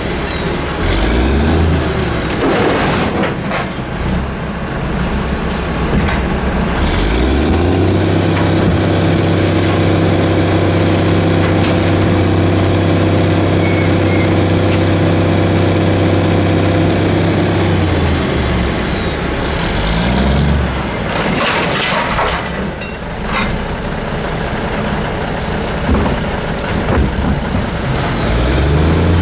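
Garbage truck's diesel engine running, revved up at about 7 seconds and held at a higher steady speed for roughly ten seconds before dropping back toward idle, with brief rev-ups later on. Several sharp clattering noises come over it.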